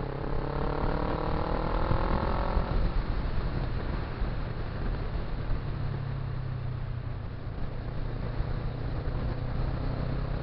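Motorcycle engine accelerating, its pitch rising for about the first three seconds, then running steadily at cruising speed.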